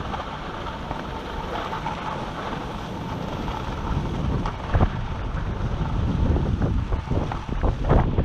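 Wind buffeting the microphone of a camera skiing downhill, over the hiss of skis sliding on groomed snow. The gusts grow stronger and choppier about five seconds in.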